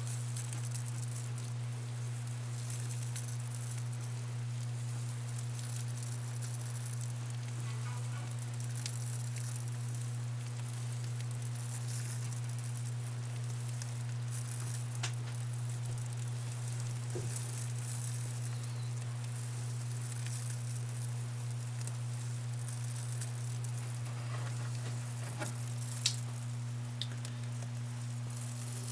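Steady low hum with an even hiss over it, and a few faint clicks around the middle and near the end.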